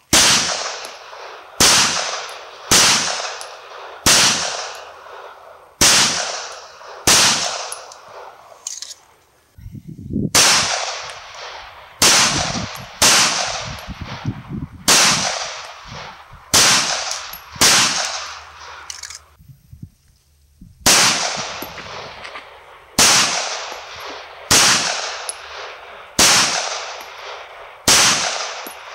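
9mm 1911 pistols firing slow, deliberate single shots, about one a second. Each is a sharp crack with a short trailing echo. There are three strings of seven or eight shots, with a brief pause between strings as one pistol gives way to the next: a Springfield Armory, then a Kimber.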